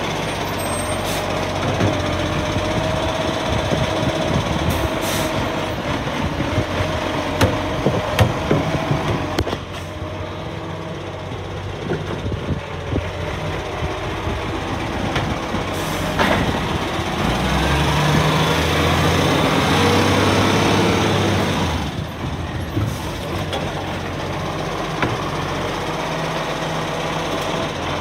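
Side-loader garbage truck at work: its engine running with a steady hydraulic whine and the clatter and knocks of the automated arm handling wheelie bins. About halfway through comes a hiss of air brakes, then the engine revs up as the truck pulls away, and near the end the arm whines again as it lifts the next bin.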